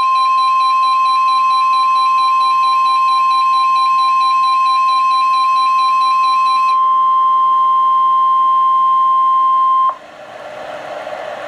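NOAA Weather Radio 1050 Hz warning alarm tone heard through a weather-radio receiver: one steady, loud single-pitch tone that cuts off suddenly about ten seconds in, giving way to radio hiss. The tone signals that a warning is about to be broadcast, here a flash flood warning.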